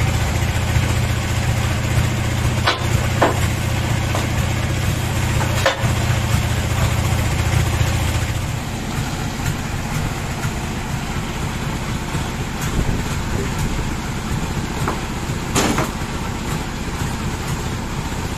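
Band sawmill's drive engine running steadily, not cutting. Its low hum drops somewhat about eight seconds in, and a few sharp knocks from handling the log come through.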